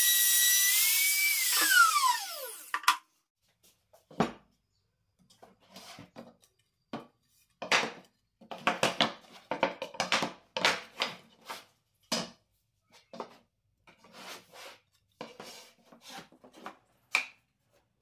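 Makita trim router running with a steady high whine, switched off about a second and a half in, its pitch falling as the motor spins down. Then irregular wooden knocks and clacks as slotted wooden strips are handled and laid on a workbench.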